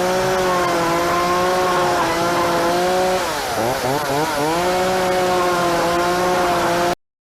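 Chainsaw running at high revs with a steady engine note. About three seconds in the pitch sags and wavers, then climbs back. The sound cuts off suddenly near the end.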